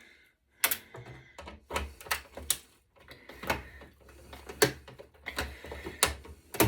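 A dozen or so sharp, irregularly spaced clicks, snaps and knocks as the plastic posts holding a circuit board are broken off and the board is worked loose.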